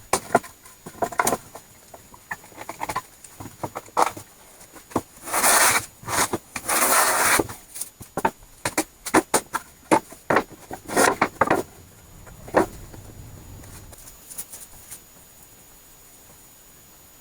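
Wood and hand tools being handled during woodworking: scattered knocks and clicks, with two short rasping rubs of wood about five and seven seconds in. It falls quiet about three-quarters of the way through.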